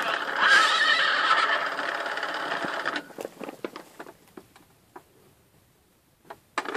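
A Mattel See 'n Say 'The Farmer Says' toy playing its recorded horse whinny from its built-in speaker. It stops about three seconds in and is followed by a few light plastic clicks as the toy's pointer and lever are handled.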